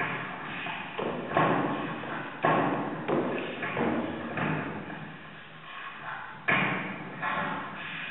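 Footsteps: feet striking a hard floor in an irregular rhythm, several heavy thuds each leaving a reverberant ringing tail, the loudest about a second and a half in, near two and a half seconds, and again about six and a half seconds in.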